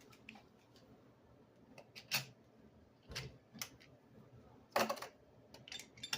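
Scattered light clicks and short taps of small objects being handled, with a couple of louder knocks about two seconds in and just before five seconds.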